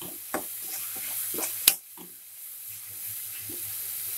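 Chopped onion, capsicum and chilli sizzling in oil in a pan while a spatula stirs them, with a few scraping strokes and a sharp knock of the spatula on the pan about a second and a half in.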